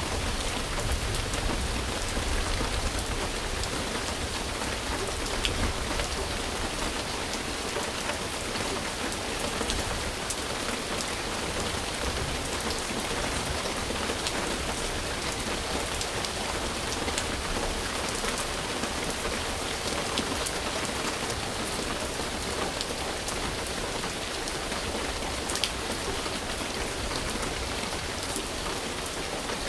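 Steady rain falling, an even hiss with individual drops ticking here and there.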